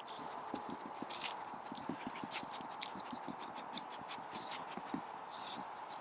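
Dry leaves and twigs on the forest floor crackling and rustling irregularly as dogs step and nose through the leaf litter.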